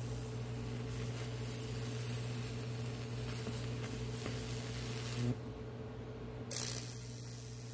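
High-voltage discharge arcing across a wet wooden board as it burns a Lichtenberg figure: a steady electrical hum under a hissing sizzle. The power cuts out a little after five seconds and comes back on about a second later with a sudden jump in the sizzle.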